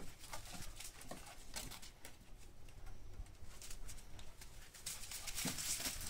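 Faint, scattered scratching and rustling of Entlebucher puppies' paws scrabbling in sand and against a wooden deck edge, with a few brief soft animal sounds mixed in.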